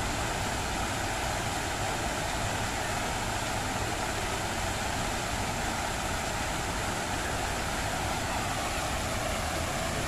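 Steady rushing splash of a large fountain's many water jets falling back into the pool, an even noise with no breaks.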